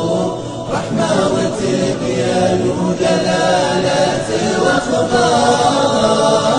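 Background music: an Arabic nasheed in praise of the Prophet Muhammad, sung by a chorus of voices.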